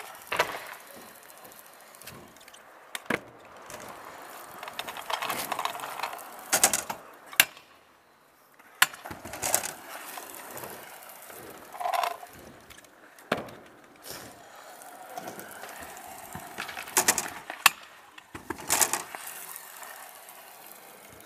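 Stunt scooter wheels rolling and rattling over asphalt and ramps, with about ten sharp clacks and bangs from the deck and wheels striking the ground on tricks and landings.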